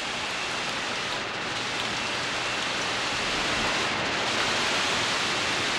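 Heavy, wind-driven hurricane rain pouring down, a steady dense hiss that grows slightly louder in the second half.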